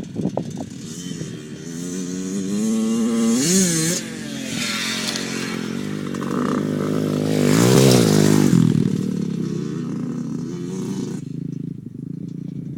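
Dirt bike engines revving hard as the bikes ride by: the revs climb and cut off about four seconds in, then a second, louder pass around eight seconds sweeps up in pitch and falls away, leaving a lower, steadier engine note near the end.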